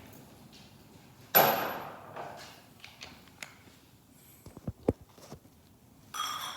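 Metal tools and parts being handled during front wheel bearing work: a sharp clank about a second in, a few light clicks and low knocks, then a short ringing metallic clink near the end.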